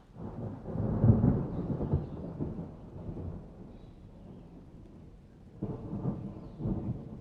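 Thunder rumbling: a deep roll swells about a second in and slowly dies away, then two fresh rumbles break out near the end.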